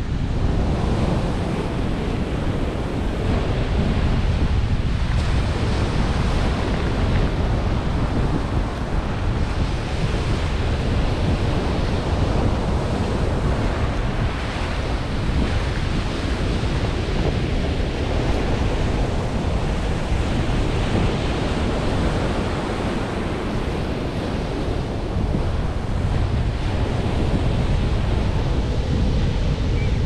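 Surf washing onto a sandy beach, steady and unbroken, with wind buffeting the microphone as a constant low rumble.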